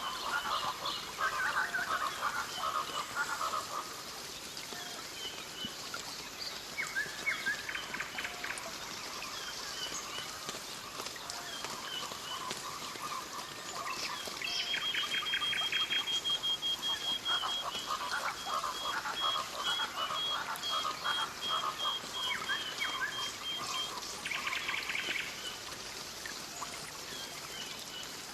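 Rainforest ambience: birds calling over and over in bursts of quick chattering notes. From about halfway through, a long, even, high pulsed trill runs for around ten seconds.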